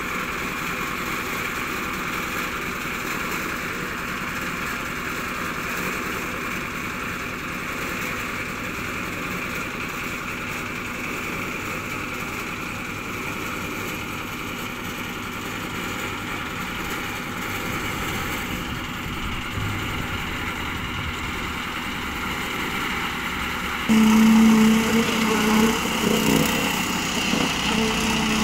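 Small petrol engine running steadily at a constant speed. About 24 s in it suddenly becomes louder and closer, with a strong steady low hum.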